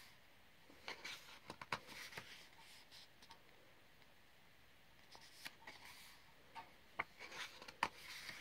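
Faint handling of coloring-book paper: soft rubs, rustles and light clicks in two short spells, with a quiet pause in between.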